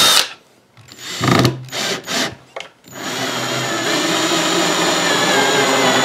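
Cordless drill: its run stops just after the start, a few short trigger bursts follow, then from about three seconds in it runs steadily with a high whine, driving a screw into a pine board.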